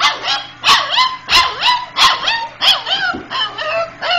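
Four-week-old puppy yipping and barking in quick succession, about a dozen short high-pitched yaps, roughly three a second.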